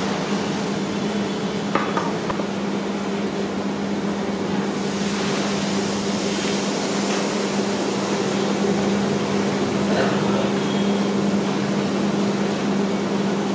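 Steady low hum under a broad hiss from a huge pot of mutton paya broth boiling hard over a wood fire, the hiss growing brighter about five seconds in. A couple of faint clinks are heard, about two seconds in and again near ten seconds.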